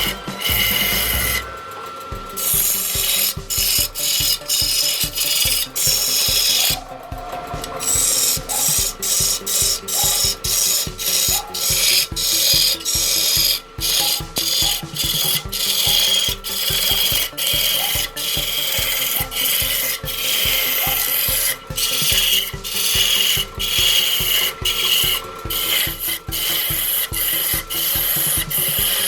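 Woodturning lathe running while a cutting tool scrapes and rasps against the spinning wood in short repeated strokes, over a faint steady whine from the machine.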